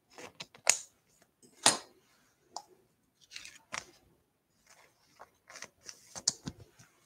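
Trading cards being handled and sorted: a string of short, dry clicks and rustles of card stock sliding and snapping against each other, with a few sharper snaps.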